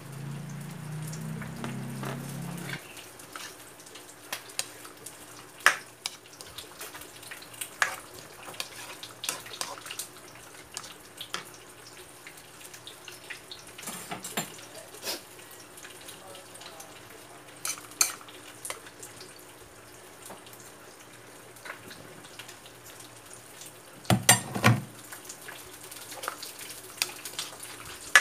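Sweet and spicy sauce with vegetables simmering in a metal wok with a faint steady sizzle, while a ladle stirs it, knocking and scraping against the pan now and then, with the loudest clatter of knocks near the end.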